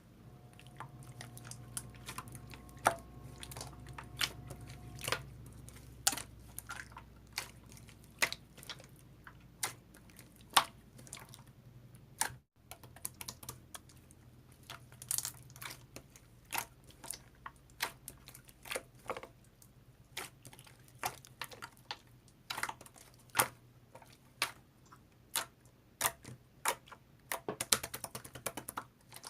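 Hard candy clicking and crunching as it is eaten: a string of sharp, irregular clicks, roughly one to three a second.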